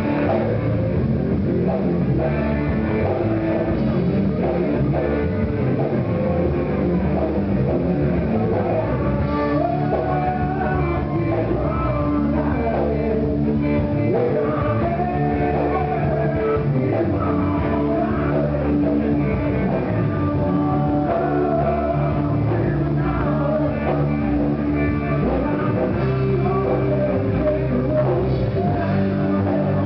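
Live rock band playing loudly, with electric guitar prominent and a singer.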